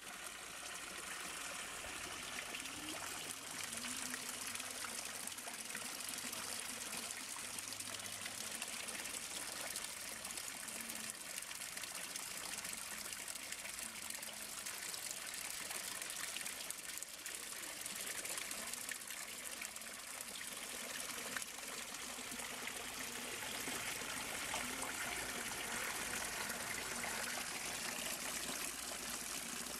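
Water pouring steadily from several metal pipe spouts of a stone wall fountain and splashing into the shallow pool below.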